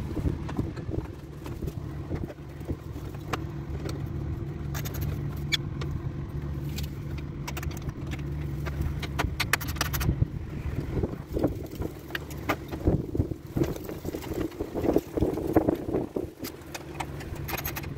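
Ratchet wrench clicking and small metal clinks, scattered and growing busier in the second half, as the bolts of a car's radiator upper support panel are run in. Under it runs a steady low hum.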